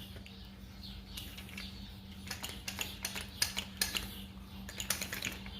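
Small clicks and light taps of a Central Pneumatic air impact wrench being handled and its parts checked by hand, growing busier from about two seconds in, over a steady low hum.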